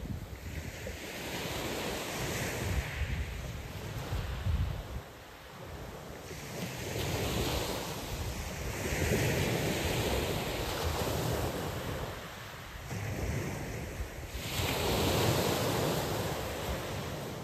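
Small waves breaking and washing up a shingle beach in three slow surges, with wind rumbling on the microphone.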